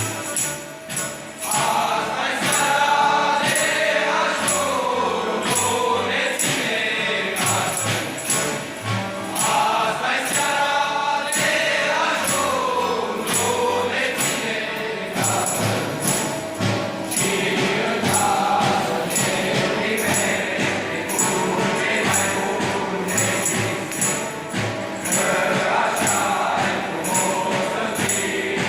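A group of carolers singing a Romanian colind together in unison, with jingles shaken in a steady beat about twice a second.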